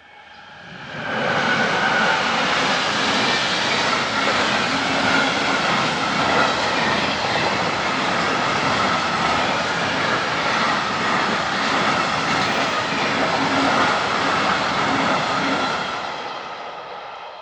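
A train led by two Bombardier Traxx E186 electric locomotives passing over a level crossing at speed: a loud, steady rush and rumble of wheels on rail that builds up quickly, holds for about fifteen seconds, then fades away near the end.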